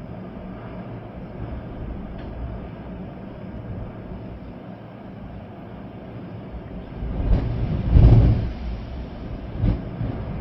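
Storm wind with rain, a steady rushing noise with a deep rumble; a strong gust swells about seven seconds in and another comes briefly near the end.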